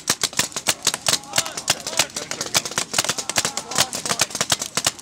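Paintball guns, among them a Tippmann 98, firing rapid, irregular shots, about five to eight pops a second, with people's voices calling out underneath.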